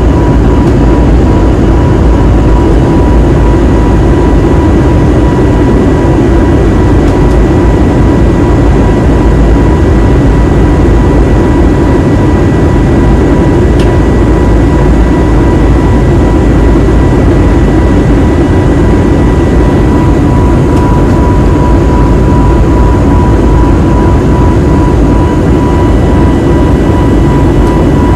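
Steady roar of an Airbus A320neo's jet engines and rushing air heard inside the cabin, with a steady high whine over it, as the airliner climbs after take-off.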